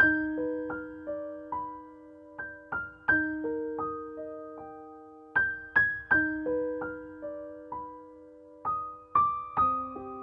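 Calm, slow piano music: single struck notes ringing out and fading, in a short phrase that repeats about every three seconds before the harmony shifts near the end.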